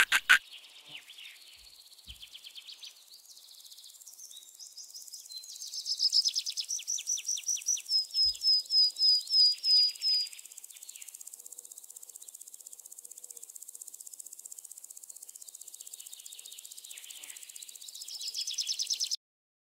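Forest ambience of insects trilling in a fast pulsing rhythm, loudest in the middle, with a bird's quick run of evenly spaced chirps about eight to ten seconds in. It opens with a short loud chirping burst and cuts off suddenly near the end.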